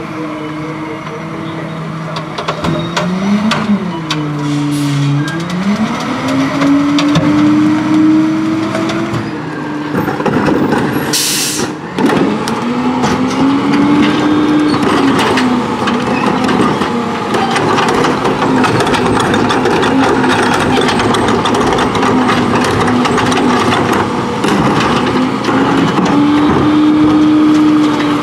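Diesel engine of a Hino rear-loading garbage truck with a New Way Viper packer body, rising in pitch and dropping back several times as the packer cycles, with a steady rattle and grind under it. A short burst of air hiss comes near the middle.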